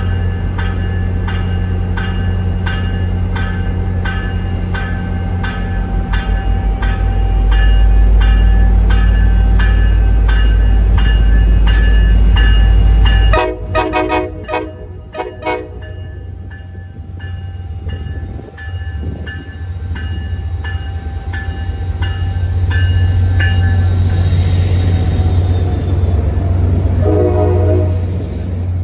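Passenger train passing with a heavy low rumble while a bell rings steadily about twice a second. About halfway through, the train horn sounds a quick series of short blasts, then the rumble falls away. One more short horn blast comes near the end.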